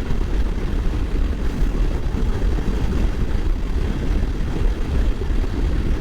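Moto Guzzi V85 motorcycle's air-cooled V-twin running steadily at road speed, mixed with low wind rumble on the microphone.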